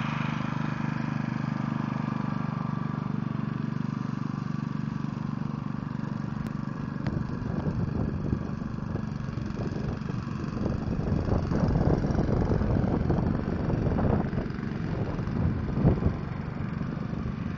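Walk-behind greens mower's small petrol engine running steadily as it cuts the green, with a rougher, louder rumble from about seven seconds in.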